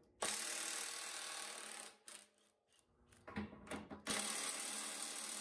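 Cordless 1/2-inch electric impact wrench hammering on a 24 mm snow blade cutting-edge bolt in two runs of about two seconds each, with a few small knocks between them. The wrench fails to break the bolt loose.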